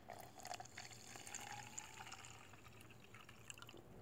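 Liquid poured from one plastic cup into another plastic cup onto salt in its bottom: a faint splashing pour, strongest in the first two seconds, then tapering off.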